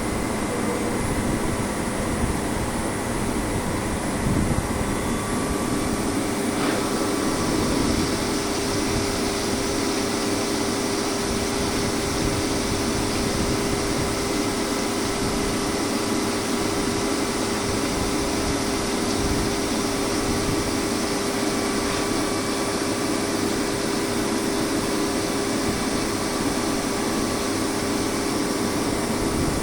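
CNC milling machine running steadily, a constant tone over an even mechanical noise; the hiss grows brighter about six and a half seconds in and holds.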